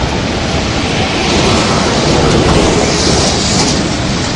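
Seti River in flash flood: a fast torrent of floodwater rushing past in a steady, dense wash of noise that swells a little in the middle. The flood came down after a collapse in the Annapurna range, which the onlookers take for a burst glacial lake.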